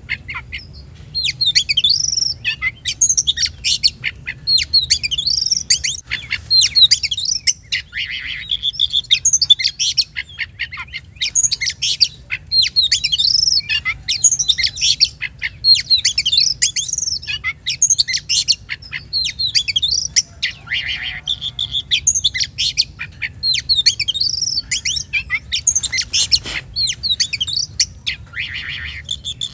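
Oriental magpie-robin (kacer) singing a continuous, rapid song of varied whistles and chirps, with a few harsh rasping notes mixed in.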